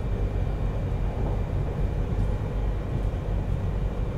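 Steady low rumble of a Yamagata Shinkansen Tsubasa train running, heard from inside a passenger car, with a faint steady whine above it.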